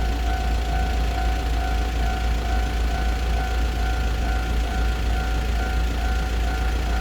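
Railway level-crossing warning bell ringing in a steady, evenly repeating two-tone chime, over a heavy, constant low rumble.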